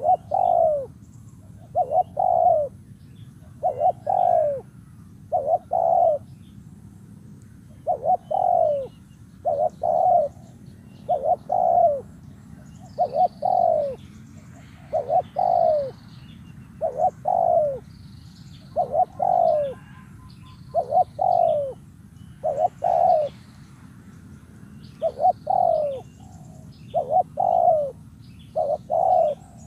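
Spotted dove cooing over and over, a loud low call in short phrases of two or three coos that repeat about every two seconds, each coo bending down in pitch at its end. This is the call used to lure wild doves in.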